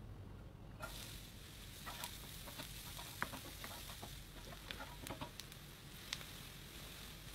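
Chicken and vegetables sizzling in a hot glass baking dish in the oven: a steady hiss with scattered pops and crackles, starting suddenly about a second in.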